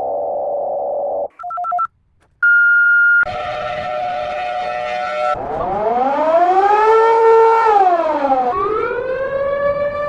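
Emergency alert alarm tones played at four times speed, one after another. Short steady tones and a brief pulsing beep come first. About five seconds in, a siren sound rises and falls over about three seconds, then starts rising again near the end.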